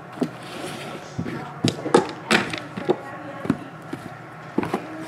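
Cardboard trading-card hobby boxes being set down and stacked on a table: a series of sharp knocks and taps, several close together in the middle.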